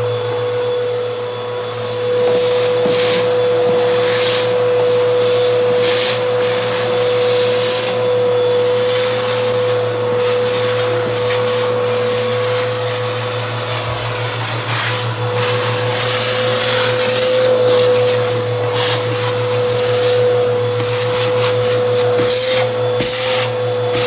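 Bissell vacuum cleaner running with a steady whine, sucking debris off a bare vinyl floor through its hose, with frequent crunching crackles and rattles as grit is pulled in.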